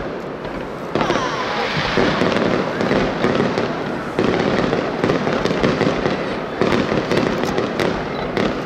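Aerial fireworks shells bursting overhead in quick succession, with dense crackling. A fresh burst comes every second or two.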